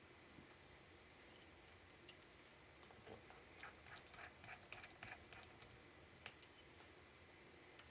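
Faint small clicks and light taps of a precision screwdriver driving tiny Torx screws into a laptop's display hinges, most of them bunched together about three to five seconds in, over near-silent room tone.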